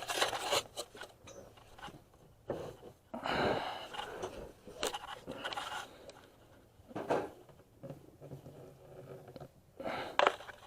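Scattered scrapes, rustles and knocks of someone moving and handling tools under a truck, with a short rushing noise about three to four seconds in.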